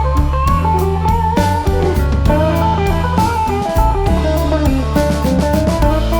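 Instrumental background music: a guitar playing a melody over bass and drums with a steady beat.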